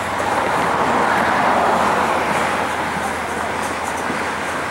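Amtrak passenger cars rolling past on the rails: a steady noise of wheels on track, growing a little louder between about half a second and three seconds in, then easing.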